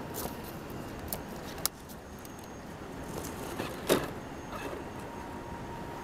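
Axial SCX10 Honcho RC rock crawler with an Axial 55-turn brushed motor, creeping over rocks. Its tyres and chassis knock and click against the stone a few times, the loudest knock about four seconds in, over a steady hiss.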